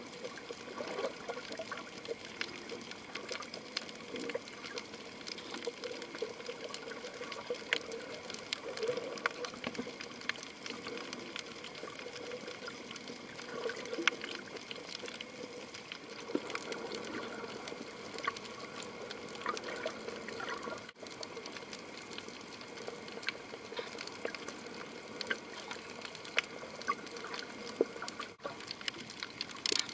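Underwater ambience picked up through a camera's underwater housing on a coral reef: steady water swishing and trickling, dotted with many scattered sharp clicks and crackles.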